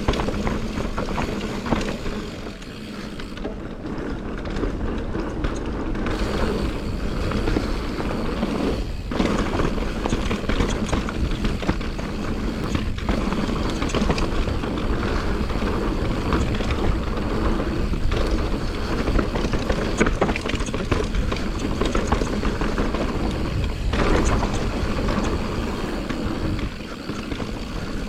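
Santa Cruz Nomad mountain bike riding down a dirt trail, heard from a camera mounted on the rider or bike: wind rushing over the microphone, tyres rolling on dirt and the bike rattling over bumps.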